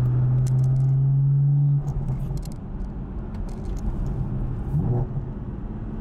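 BMW M4's twin-turbo inline-six and road noise heard from inside the cabin while driving. A steady engine drone holds for about two seconds, then drops off as the note eases.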